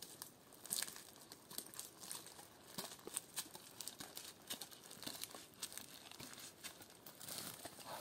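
A climber's boots and harness gear scraping and crunching against pine bark as he climbs down the trunk: an irregular string of faint clicks, crackles and scrapes.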